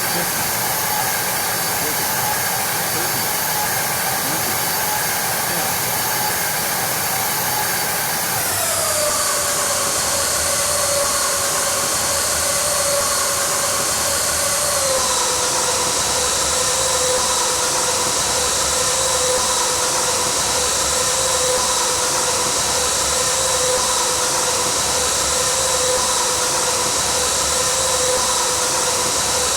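Jet airliner's engines during landing: a loud, steady rushing noise with a high whine that drops in pitch twice, once about eight seconds in and again about fifteen seconds in.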